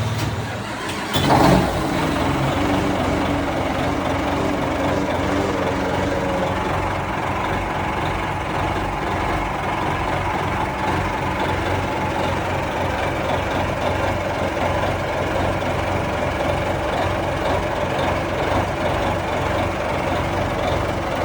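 Boat's diesel engine running steadily after a repair to its fuel injection pump, its idle speed not yet adjusted. About a second and a half in there is a brief loud surge before the steady running resumes.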